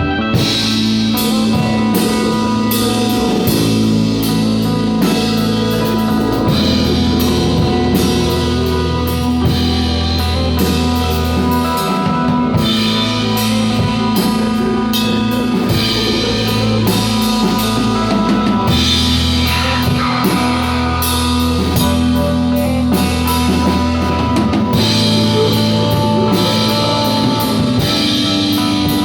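Rock music with a full drum kit, electric guitar and bass playing a sustained, layered instrumental passage.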